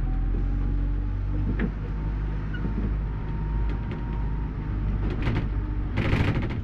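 Bus engine running with a steady low drone, heard from inside the driver's cab, with short rattles and knocks over it; the loudest clatter comes near the end.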